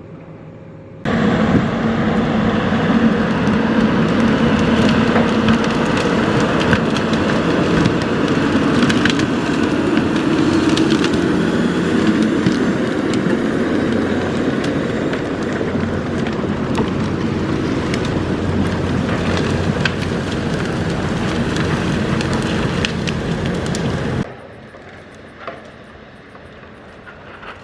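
Heavy logging machine running hard while wood cracks and splinters, as timber is handled or processed. It starts abruptly about a second in and cuts off a few seconds before the end.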